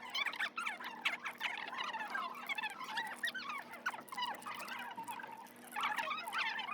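Many small birds chirping and twittering together, a dense continuous chatter of short rising and falling chirps that thins briefly about five seconds in.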